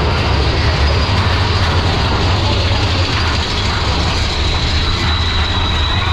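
Mine-train roller coaster running on its steel track through a tunnel: a loud, steady low rumble of the wheels and cars.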